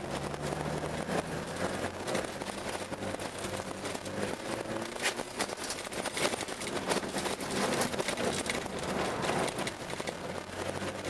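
Car engine and tyre noise heard inside the cabin while driving on a rutted ice and snow track, with many ticks and knocks from the rough surface. The engine note drops about a second in and starts to climb right at the end as the car accelerates.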